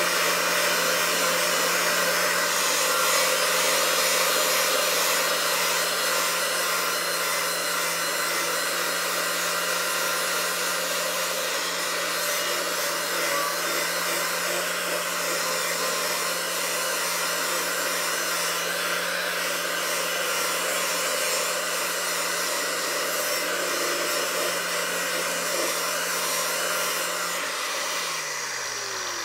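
Right angle grinder with a grit-40 zirconia flap disc running steadily under load, grinding rust and mill scale off steel. Near the end it is switched off and the motor winds down with a falling whine.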